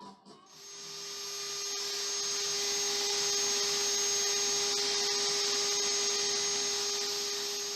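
A small motor whirring steadily with a constant hum over a hiss, fading in over about two seconds and starting to fade out near the end.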